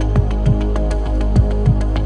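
Background electronic music with a steady beat: deep kick-drum hits and sharp ticks over held synth chords.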